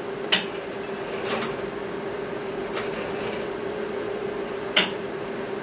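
ZSK embroidery machine humming steadily with one held mid-pitch tone, broken by four short clicks spread over the few seconds while its test ends and the main shaft returns to its stopping position.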